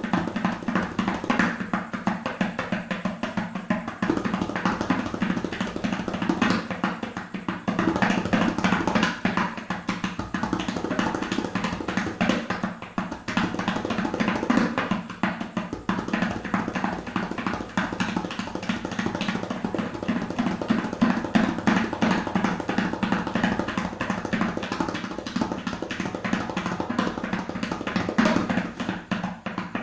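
Tabla played in a fast, unbroken stream of strokes that imitates a horse running.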